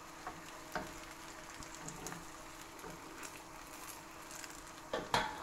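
Cheese pancake sizzling faintly in a frying pan, with a few light clicks from a spatula in the pan and a couple of louder knocks near the end.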